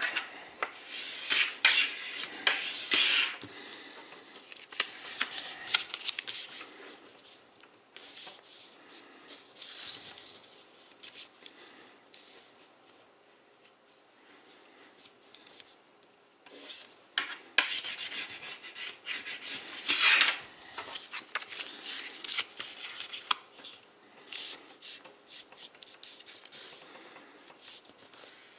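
A sheet of 100 gsm printed paper being folded by hand: the paper rustles and slides on a wooden tabletop as fingers rub the creases flat. The rustling comes in bursts, with a quieter spell in the middle.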